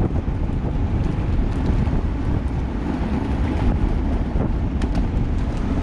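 Steady wind buffeting the microphone at riding speed, over a low rumble of wheels rolling on asphalt, with a few faint clicks.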